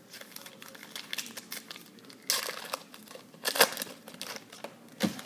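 Foil football-card pack wrapper crinkling as it is handled and torn open, in crackly bursts, loudest about two, three and a half, and five seconds in.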